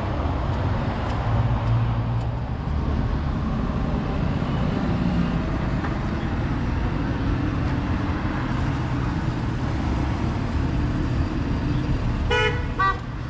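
Steady rumble of street traffic, cars passing, with a car horn giving a few quick toots near the end.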